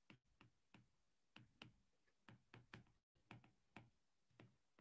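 About a dozen faint, irregularly spaced ticks of a stylus tapping a tablet screen while handwriting, against near silence.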